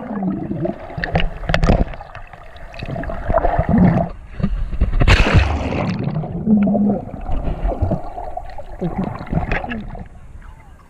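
Sea water splashing and gurgling around a camera held at the surface, which dips under and comes back up, in a jumble of irregular splashes.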